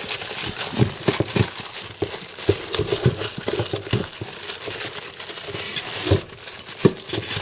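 Packaging being crinkled and pulled at by hand: a run of irregular crackling and rustling as the speaker box is worked open without a knife.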